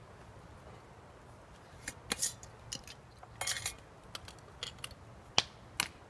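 Light clicks and clinks of a small glass French press being handled, its metal plunger and lid pulled from the glass carafe and set down on a wooden table, with two sharper knocks near the end.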